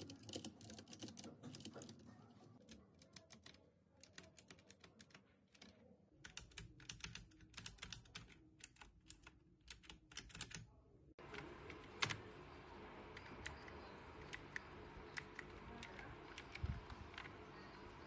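Typing on an HJK917 mechanical keyboard with blue switches: quick, irregular key clicks. About eleven seconds in the recording changes, and the keystrokes come sparser over a faint steady hiss.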